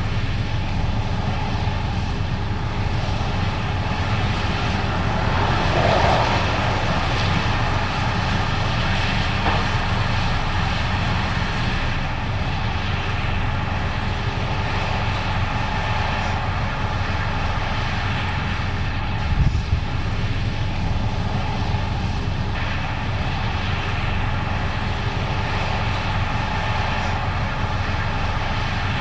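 Case IH 8250 Axial-Flow combine running steadily while harvesting corn: a continuous engine and threshing-machinery drone, swelling briefly about six seconds in, with a couple of short low thumps about two-thirds of the way through.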